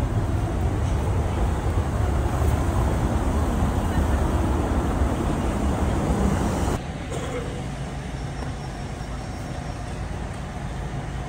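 City street sound with steady traffic noise. About seven seconds in it cuts abruptly to a quieter stretch of the same kind of sound.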